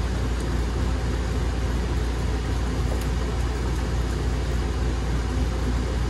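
Steady low hum and hiss of running machinery in the background, with a couple of faint clicks.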